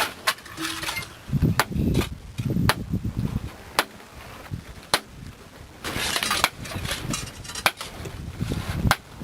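Hand digging tools at work: irregular sharp knocks mixed with dull thuds and scraping.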